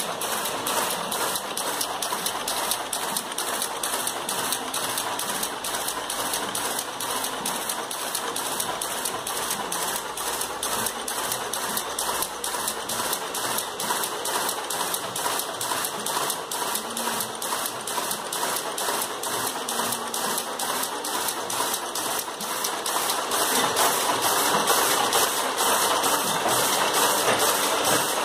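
Power loom with a four-colour weft selector running at speed: a steady mechanical clatter with an even beat of about two to three strokes a second, one for each pick of weft. It gets somewhat louder near the end.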